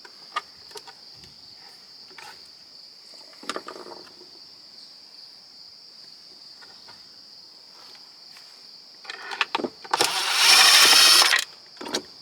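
A few light clicks and taps of hand tools on the waffle maker, then a power driver runs loudly for about a second and a half near the end, driving at a screw in the casing. Crickets chirp steadily throughout.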